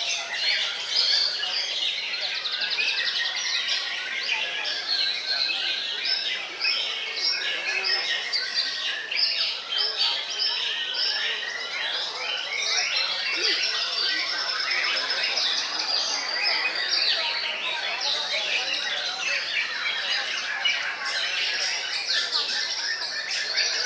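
Many white-rumped shamas singing at once: a dense, unbroken chorus of quick overlapping whistles and chattering phrases.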